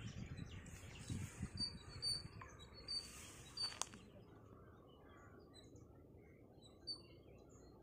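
Small birds chirping: short, high chirps repeated at one pitch, over a low rumble. A sharp click comes just before four seconds in, after which only faint scattered chirps remain.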